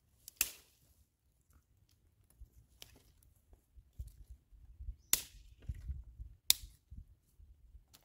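Dry sticks snapped by hand: a handful of sharp, separate cracks, the loudest about half a second in and two more close together past the middle, with faint rustling of wood being handled between them.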